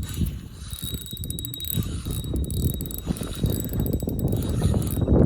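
Fishing reel clicking rapidly and continuously while a hooked fish is fought on the rod, over a low rumble.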